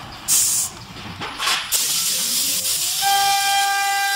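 CNC router spindle spinning up after two short bursts of hiss, its pitch rising, then running at speed with a steady high whine over hissing noise.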